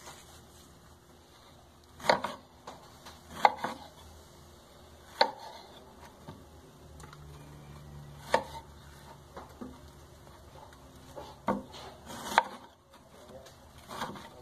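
Knife chopping chicken on a cutting board: a handful of sharp knocks at irregular intervals, a second or a few seconds apart.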